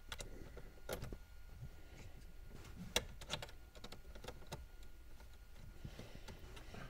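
Faint, irregular clicking of a socket ratchet as 8mm bolts are undone, with one sharper click about three seconds in.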